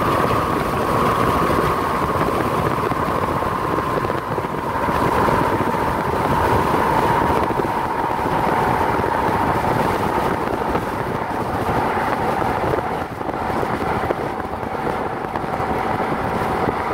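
A car driving on the road: steady tyre and wind noise, with a faint whine that slowly falls in pitch.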